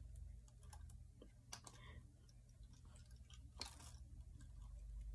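Near silence: room tone with a low steady hum and a few faint scattered clicks.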